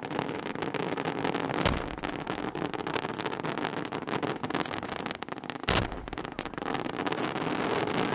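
A mass firing of thousands of firework rockets, bursting in a dense, rapid, crackling volley of overlapping bangs, with two louder bangs about a second and a half in and about six seconds in.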